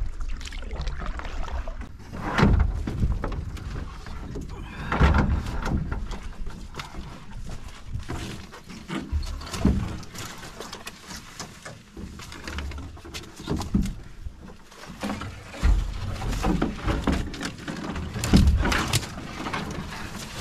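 Footsteps and rustling brush on a rocky portage trail under someone carrying a canoe overhead, with heavy irregular thuds every couple of seconds.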